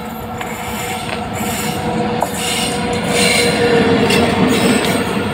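Electric locomotive hauling a freight train approaching and passing close by. Wheel-on-rail noise grows louder as it nears, with a steady whine and high, brief wheel squeals as the locomotive goes past.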